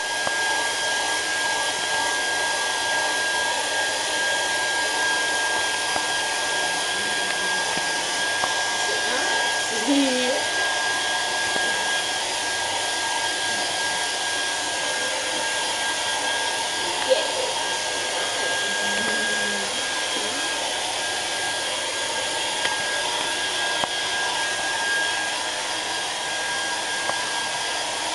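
Handheld hair dryer running steadily: a constant rush of air with a steady high motor whine over it.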